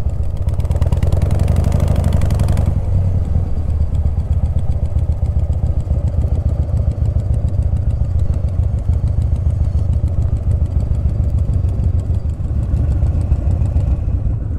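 Vintage Harley-Davidson V-twin engine running at low speed as the motorcycle rolls slowly to a stop. A brief rushing noise is heard from about half a second to three seconds in.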